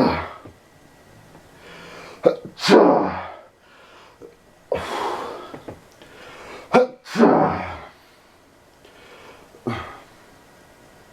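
A person sneezing repeatedly in a fit: several loud, explosive sneezes a couple of seconds apart with gasping in-breaths between, the last one weaker, near the end.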